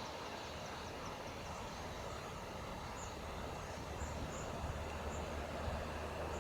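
Faint low rumble of a distant train's diesel locomotive, growing a little stronger from about four seconds in, with short high bird chirps at intervals.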